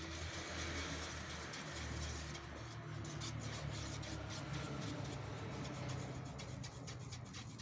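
Faint scraping and ticking of a stick stirring paint in a can, over a low steady hum.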